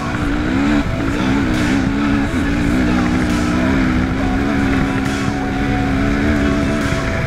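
KTM dirt bike engine running under throttle, its pitch wavering up and down for the first couple of seconds and then holding steady.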